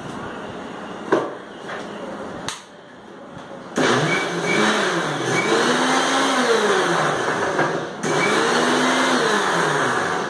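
Indian mixer grinder (mixie) blending a liquid mango, milk and cream mixture: a couple of knocks as the jar is set on the base, then about four seconds in the motor starts and runs loudly, its pitch rising and falling as the liquid churns. It stops briefly about eight seconds in and runs again until just before the end.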